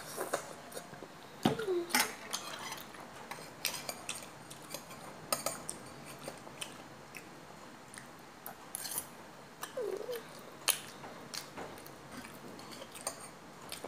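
Eating noises from a bowl of beef-bone soup: scattered sharp clinks and taps of a utensil and bone against the bowls, with mouth and chewing sounds in between. Two short squeaky sounds stand out, one about a second and a half in and one about ten seconds in.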